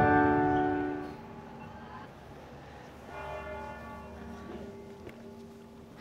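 Church bells ringing: a chord of bell tones fades out over about a second, then another stroke about three seconds in rings and dies away.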